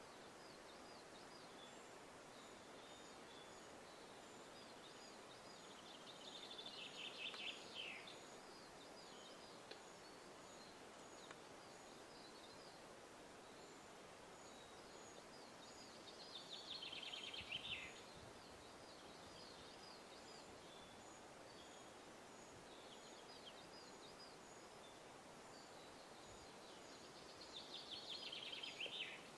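Male western capercaillie singing its courtship display song three times, about ten seconds apart. Each phrase is a run of ticks that speed up into a short scraping rush, over a faint background hiss.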